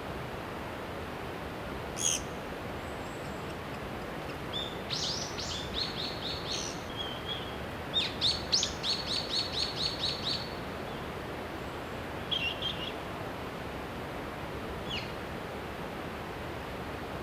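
Wild birds calling over a steady hiss: a sharp call about two seconds in, then two runs of quick, repeated high notes, and a few short calls near the end.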